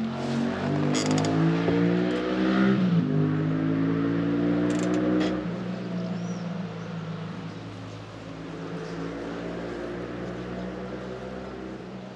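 An engine running and accelerating, its pitch rising then dropping suddenly about three seconds in, then holding steady as it slowly fades.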